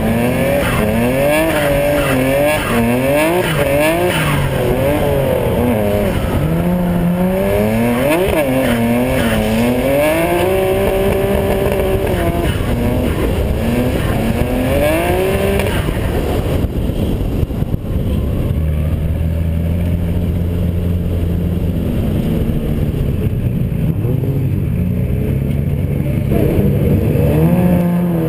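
Drift car's engine heard from inside the cabin, revving hard and swinging rapidly up and down through a drift. About two-thirds of the way in the revs fall away and the engine settles to a steady idle, then revs rise again at the very end.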